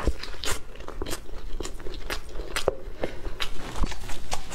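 Close-miked chewing of a soft steamed bun: wet mouth clicks and smacks in a chewing rhythm of about two to three a second.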